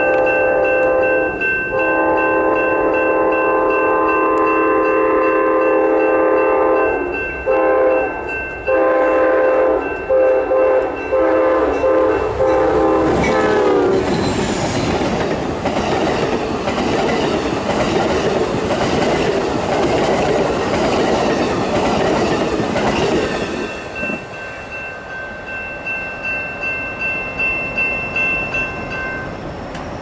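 Amtrak locomotive's air horn sounding a long chord and then a run of short blasts, dropping in pitch as the locomotive passes. Then come the rumble and clickety-clack of bi-level passenger cars rolling by. Near the end there is a quieter, pulsing ringing from a grade-crossing bell.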